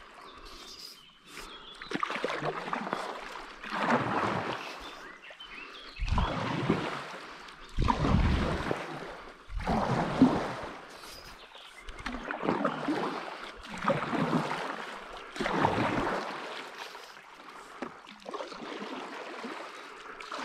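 Paddle strokes from a stand-up paddleboard: the blade dipping and pulling through river water about once every two seconds, each stroke a swell of splashing and swirling. The strokes ease off to a softer water wash near the end.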